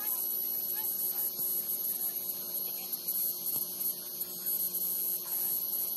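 A steady hum under a constant high-pitched hiss.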